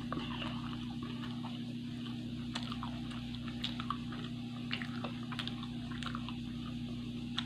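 Close-miked chewing and wet mouth sounds of a person eating soft rolled crepes and small green chillies, with scattered small clicks and smacks over a steady low hum.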